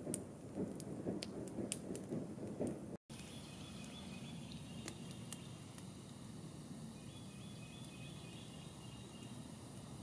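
Campfire crackling with sharp pops over a low rumble, then after a cut a quiet outdoor background with faint high bird chirps.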